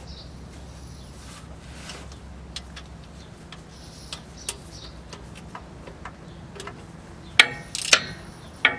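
Ratchet wrench tightening a starter mounting bolt, clicking in scattered single ticks at an uneven pace, with a few louder knocks near the end.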